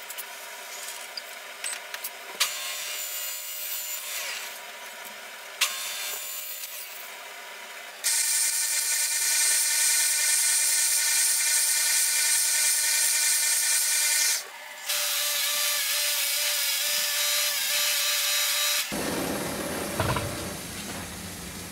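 Oscillating spindle sander running steadily while wood is sanded against it, for about ten seconds with a brief break partway. Before it come a few sharp taps and short scraping sounds of hand work on wood.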